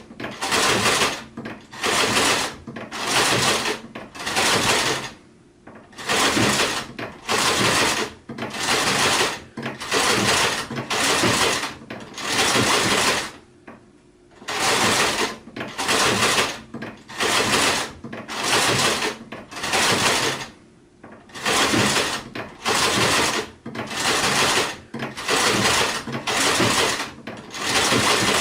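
Sewing machine stitching in short runs of about a second each, stopping and starting again over and over, with a couple of longer pauses.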